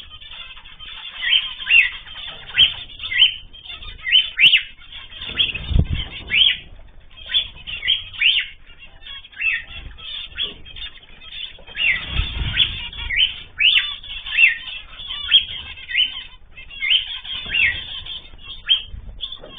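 Aviary of small ornamental cage birds chirping constantly in quick, short calls. Wings flutter now and then, most strongly about six seconds in and again past halfway.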